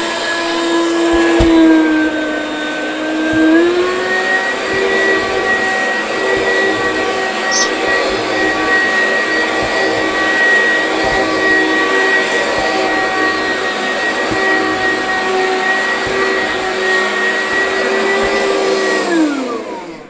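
Oreck XL two-speed upright vacuum cleaner running with a steady motor hum; its pitch dips slightly, then steps up about three and a half seconds in and holds. Near the end the motor winds down with a falling pitch.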